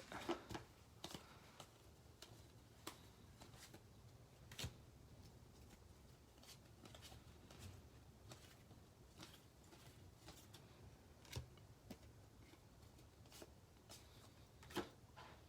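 Faint, scattered soft clicks and slides of baseball cards being flipped through by hand one at a time, a couple of them a little sharper.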